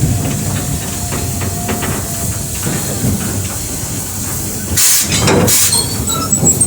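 Steam locomotive hissing steam, with two loud blasts of steam close together about five seconds in.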